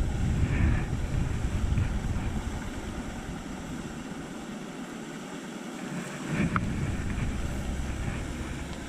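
Wind buffeting the microphone over a steady hiss. The low rumble of the gusts eases about halfway through and picks up again a little later.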